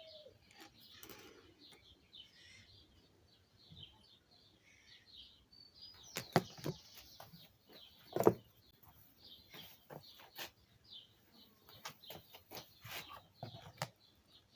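Small birds chirping steadily in the background, with a few sharp clicks and knocks in the second half, the loudest a little past the middle.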